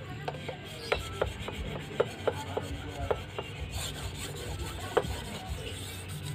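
Steel machete blade scraping in quick back-and-forth strokes on a whetstone, with a sharp tick at each stroke, about three a second, as the edge is polished toward a shine.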